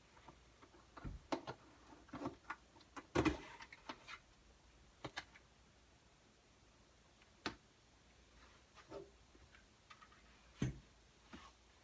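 Scattered light knocks and clicks of things being handled in a small room, with the loudest knock about three seconds in and another near the end.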